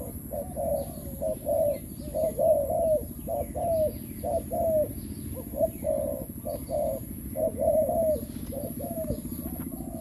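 Doves cooing: a quick, overlapping run of short, falling coos repeated several times a second, with fainter small-bird chirps above and a steady low hum beneath.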